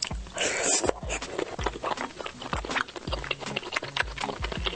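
Close-miked chewing of crunchy food, a dense run of crisp crunches and clicks with a louder, noisier burst just under a second in, over soft background music.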